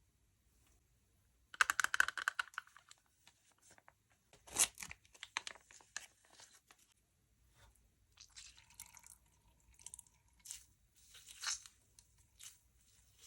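Slime-making materials being handled by hand: irregular bursts of crackling and crinkling, the densest about two seconds in and another cluster around four and a half seconds, then scattered crackles.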